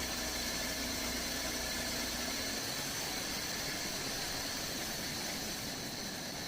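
Shopsmith bandsaw running with a steady whir and a faint high whine.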